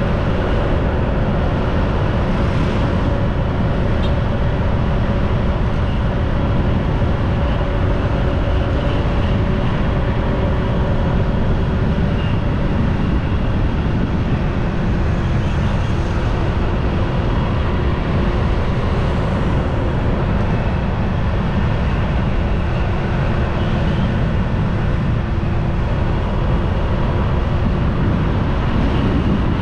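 Motorbike riding along at a steady speed: the engine running under a heavy rush of wind on the microphone.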